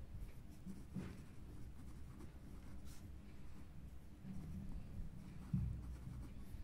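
Ballpoint pen scratching faintly on lined paper as a short line of words is handwritten, with a soft low thump about five and a half seconds in.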